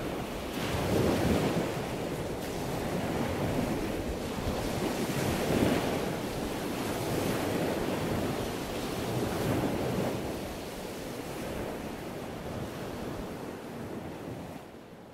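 Ocean surf: waves washing in as a steady rush of noise, swelling every few seconds and dying down over the last few seconds.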